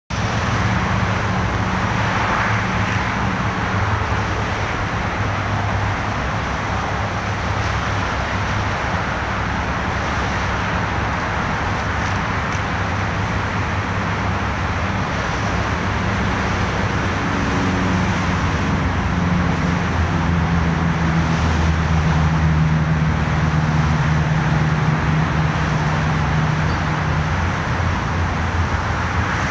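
Steady road traffic: a continuous hiss of tyres with engines humming underneath. A deeper engine hum swells in the second half.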